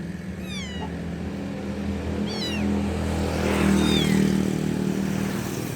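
Kitten meowing for its mother: three short, high-pitched calls, each falling in pitch, about one every second and a half. A steady low hum runs underneath.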